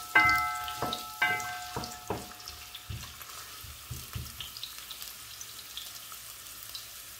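Chopped onion sizzling as it fries in hot oil in a pot, stirred with a wooden spoon that knocks against the pot a few times in the first two seconds with a brief ring. After that the sizzle goes on more quietly, with a few light scrapes.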